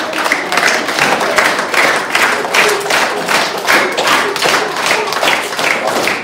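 A large group of young children clapping in time, a steady rhythmic beat of many hands together.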